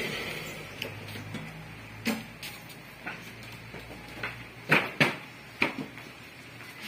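Irregular knocks and thuds of cardboard cartons being shifted and set down in a truck's cargo bed, the loudest three coming between about four and six seconds in.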